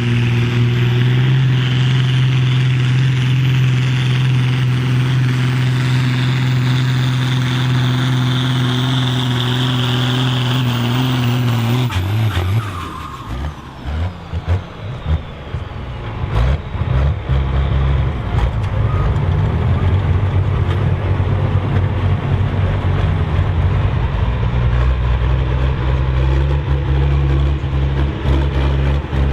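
Ford TW-series diesel pulling tractor running flat out under load, with a faint high whistle climbing over it. About twelve seconds in the engine note drops off suddenly into uneven rumbling. Then from around seventeen seconds an engine runs steadily again at a lower, deeper note.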